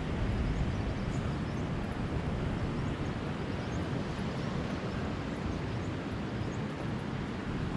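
Ocean surf breaking on the beach, heard as a steady wash of noise, with wind buffeting the microphone and adding a low rumble.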